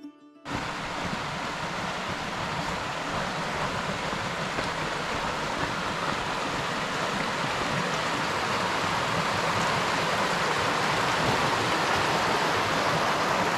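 A rocky mountain creek rushing over stones, a steady water noise that swells slightly toward the end.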